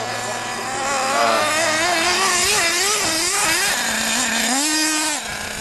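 Radio-controlled truggy's small engine running hard, its high-pitched note rising and falling constantly as the throttle is worked while it drives over dirt.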